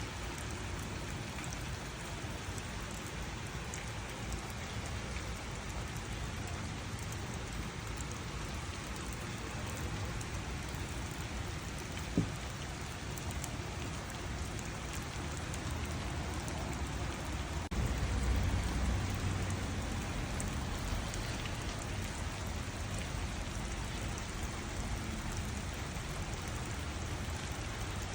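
Steady rain falling on garden surfaces, with scattered drips. A single knock sounds near the middle, and a low rumble swells for a couple of seconds about two-thirds of the way through.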